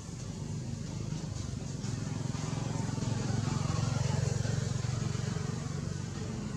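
A vehicle engine passing by, its low hum growing louder to a peak about four seconds in and then fading.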